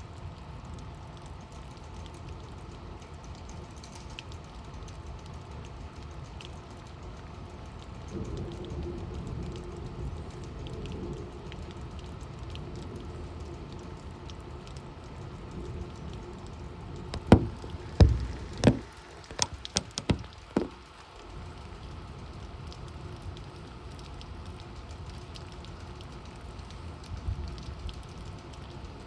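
Torrential rain falling steadily in a severe thunderstorm. Partway through comes a run of about six loud, sharp knocks over a few seconds.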